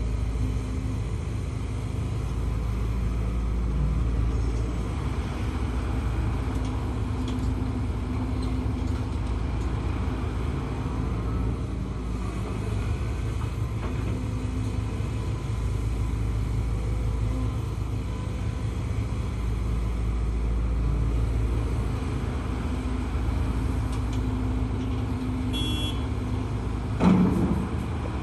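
Heavy diesel machinery running steadily with a low rumble: a Hidromek HMK230LC excavator's engine working under load while loading a dump truck. A single brief loud bang comes near the end.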